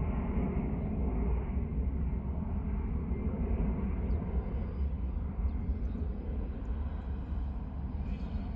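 Steady low rumble of distant jet airliner engines across the airfield.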